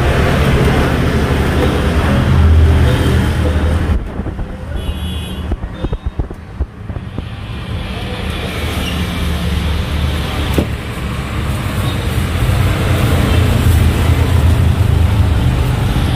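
Road traffic close by: engine rumble of passing vehicles that fades for a few seconds in the middle and then builds up again, with a few light knocks while it is quieter.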